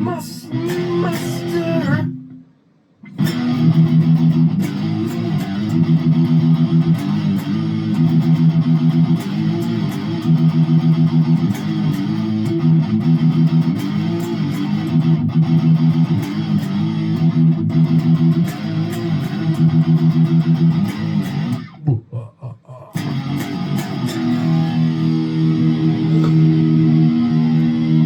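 Electric guitar and bass playing a fast repeating heavy-metal riff. It drops out briefly about two and a half seconds in and again about twenty-two seconds in.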